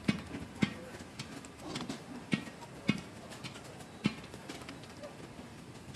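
Sharp, irregular clicks and cracks, several in the first few seconds and one more around four seconds in, as a long-tailed macaque handles a lotus seed pod and picks out and bites its seeds.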